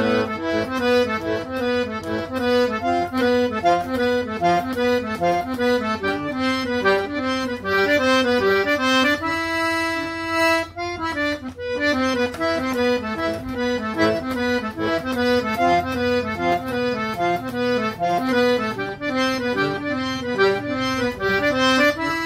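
Accordion (sanfona) playing an instrumental melody of quick, short notes over a steady bass accompaniment, with a couple of longer held notes about halfway through.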